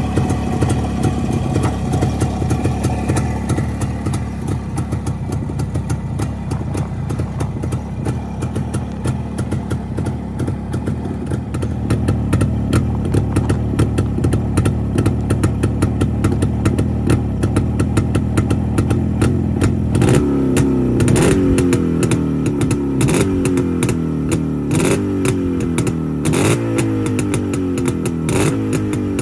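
A 1963 Jawa 354 motorcycle's two-stroke engine idles steadily. From about two-thirds of the way through, the throttle is blipped over and over, and the revs rise and fall about every two seconds.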